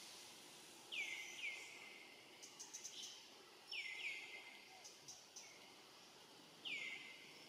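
A series of short, high-pitched animal calls, each sliding quickly down in pitch: two close together about a second in, another pair near the middle, and one more near the end. A few faint ticks fall between them.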